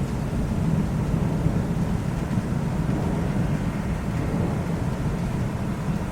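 Thunderstorm: a steady low rumble of thunder under an even hiss of rain.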